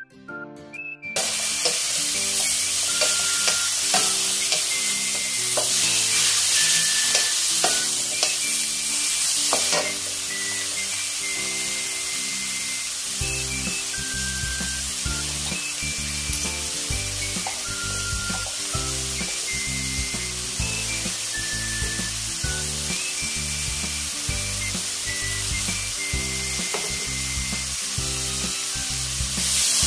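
Cabbage and bacon sizzling in a hot wok, stirred and scraped with a wooden spatula. The sizzle starts about a second in. Background music plays over it and picks up a steady beat about halfway through.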